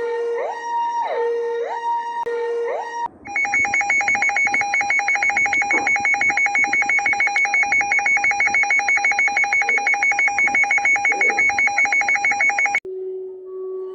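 Synthesized emergency-alert alarm tones. A two-note high-low tone alternates for about three seconds, then gives way to a rapid, evenly pulsing alarm tone several beats a second. Near the end this cuts off suddenly to a lower steady tone.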